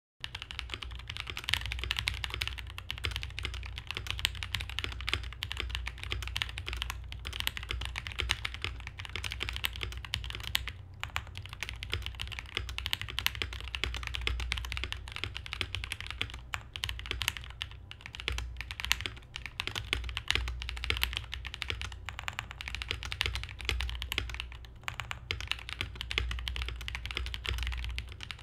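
Fast, continuous typing on a mechanical keyboard with lubed Durock POM linear switches (Krytox 205g0) in a KBDfans KBD67 Lite R2 with doubleshot ABS keycaps: a dense run of keystroke clacks with a brief pause about a third of the way through.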